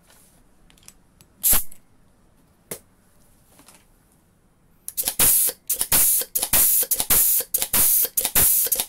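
Pneumatic squeeze riveter cycling on shop air: repeated short blasts of compressed-air hiss, about two to three a second, start about five seconds in. A single sharp hiss of air comes earlier, about a second and a half in.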